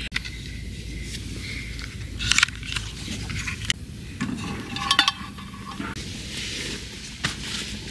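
Metal camping gear being handled and packed, with scraping and clinking. There are a few sharp clinks about two and a half seconds in and a short ringing cluster about five seconds in.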